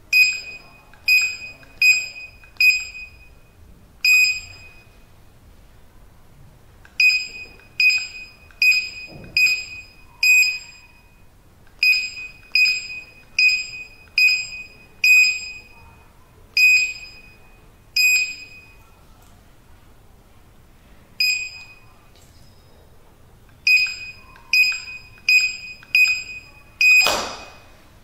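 Retekess T-AC03 access-control keypad's built-in buzzer beeping once for each key press as codes are entered, in runs of four or five quick beeps with pauses between. Near the end comes one longer beep with a sharp click.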